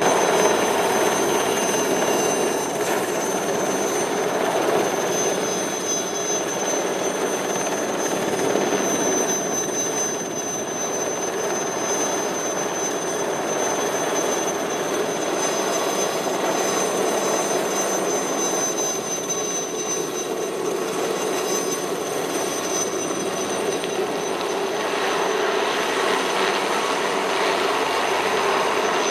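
Light helicopter hovering overhead: steady turbine and rotor noise with a high steady whine.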